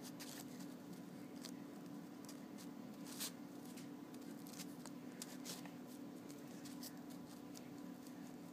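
Folded Post-it paper rustling and crackling in short, scattered bursts as an origami transforming shuriken is squeezed from a ring shape into a star, the sharpest crackle about three seconds in. A steady low hum runs underneath.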